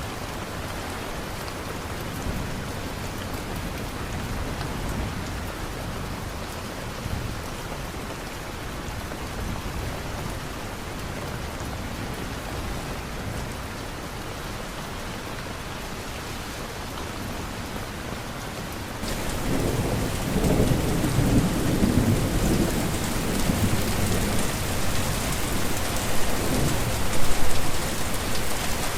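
Steady rain falling. About two-thirds of the way through, the rain suddenly gets louder, and a long low rumble of thunder rolls under it.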